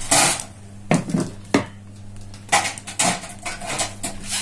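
Several short knocks and rattles of objects being handled on a wooden tabletop, over a steady low hum.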